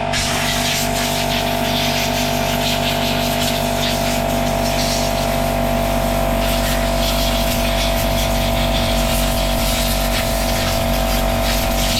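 Air compressor running steadily, with the hiss of compressed air blowing through a nozzle to clean dirt out of a chainsaw.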